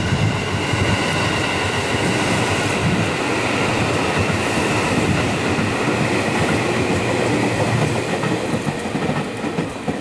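JR West 221 series electric train running past close by, its wheels rattling on the rails with a steady high tone over the noise. It eases off a little near the end as the train pulls away.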